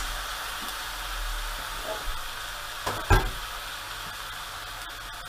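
Diced potatoes, onion and garlic sizzling steadily in rendered bacon fat in a stainless steel pot as they sweat, with one short knock about three seconds in.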